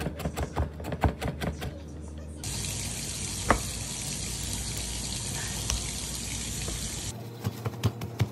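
A knife chopping fast on a wooden cutting board, mincing garlic, about five strokes a second; it stops abruptly after about two seconds. A steady rushing noise follows for about five seconds and cuts off suddenly, then plastic packaging rustles and knocks as it is pulled off raw short ribs.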